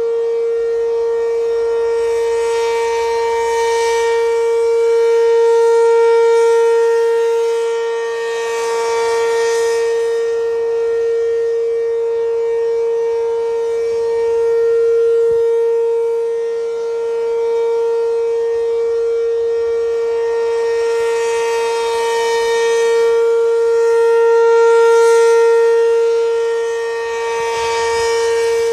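ACA P-15 civil defense siren sounding its alert signal: one steady, unchanging pitch with strong overtones, very loud. The sound swells and fades every several seconds as the rotating horn sweeps toward and away.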